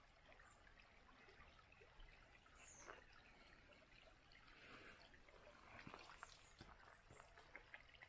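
Faint trickling and babbling of river water running over rocks, with scattered small irregular ticks.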